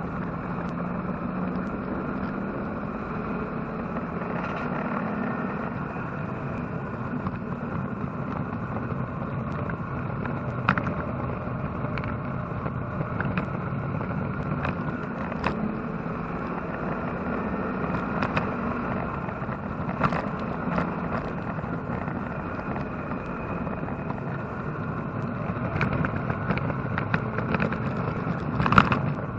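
Chevrolet-engined Porsche 944 race car at speed on track, heard from inside the cockpit: steady engine and road noise, broken by a few sharp knocks and rattles.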